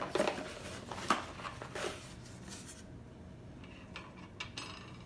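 Plastic glitter glue bottle being squeezed and handled: short hissy squirts and sharp clicks for the first few seconds, then only a few faint clicks.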